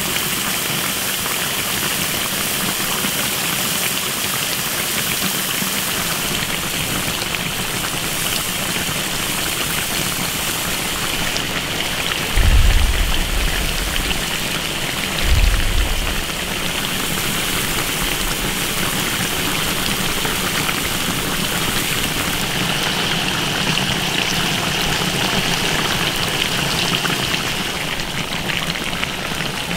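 Braised pork sauce simmering in a large wok, a steady bubbling hiss. Two short low rumbles come about 12 and 15 seconds in.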